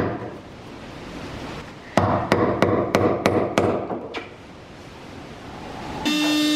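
A quick run of about seven hammer blows, roughly three a second, from someone working under the hull at the sternpost. Near the end a cordless drill starts and runs with a steady whine.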